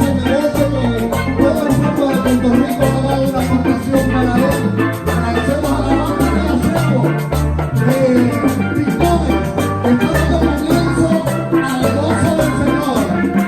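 Steel band playing an upbeat Latin-style tune: steel pans carrying the melody and chords over a moving bass line and drums.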